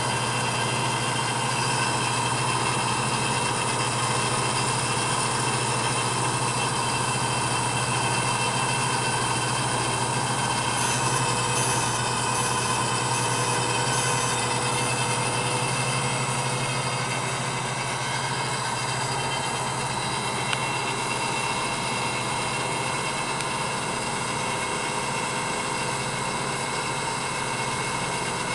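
Lathe converted to a cam grinder running, with its tool post grinder's wheel spinning and grinding a practice cam blank: a steady mechanical hum and whine, level throughout.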